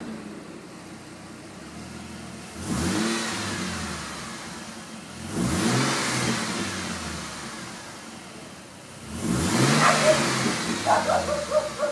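Car engine idling and revved three times, each rev climbing quickly and then settling back slowly; the owner hears an odd noise in it.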